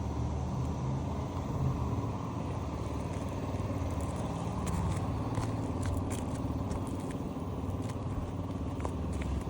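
Steady low rumble, with scattered light clicks and scrapes from asphalt roof shingles being worked loose on a brittle roof, most frequent around the middle.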